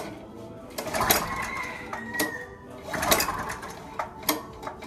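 Small petrol generator, converted to run on LPG, being cranked over in several short bursts without catching yet.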